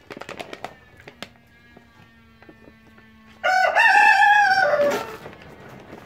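A loud animal call, about a second and a half long, held in steps and then falling in pitch at the end. Before it come light clicks and rattles of a macaque handling a cardboard treat canister.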